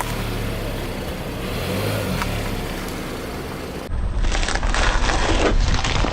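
Car rolling with a low engine and tyre rumble, then a car tyre rolling over and crushing a crunchy object, giving a run of crackling crunches for about a second and a half in the second half.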